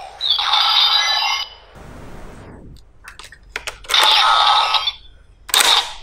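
Kamen Rider Diend toy gun playing its electronic sound effects: a buzzing ringing tone, a noisy whoosh, a few sharp clicks, a second ringing tone, and a short blast near the end.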